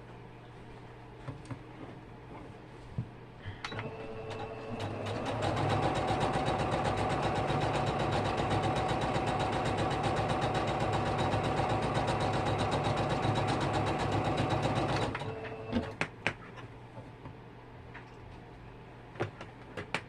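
Sewing machine stitching a seam: it ramps up a few seconds in, runs at a steady fast stitch rate for about ten seconds, then stops abruptly. A few light clicks from handling come before and after.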